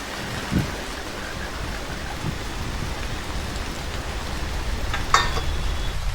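Steady rain falling, with a couple of soft low thuds in the first few seconds and one brief sharp crack about five seconds in.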